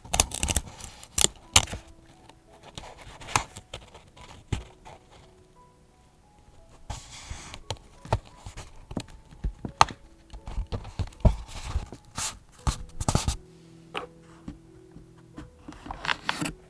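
Close-up paper crafting sounds from decorating a vintage-style journal: irregular clicks, taps and short rustles of paper and stationery being handled, with a longer rustle about seven seconds in. Soft background music plays underneath.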